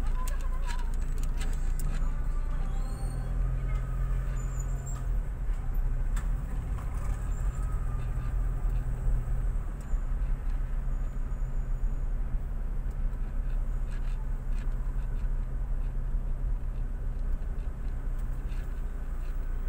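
Steady low engine and road rumble of a car driving slowly on a city street, heard from inside the cabin.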